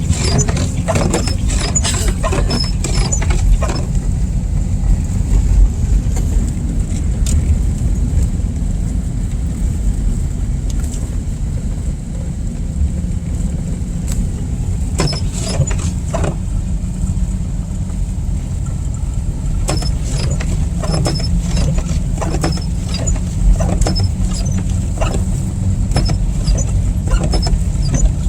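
Car driving through slush and snow, heard from inside the cabin: a steady low rumble of tyres and engine, with scattered clicks and knocks on the car that come in clusters.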